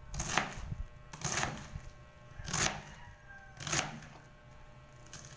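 Kitchen knife cutting through cabbage onto a chopping board: four sharp chops, about one a second.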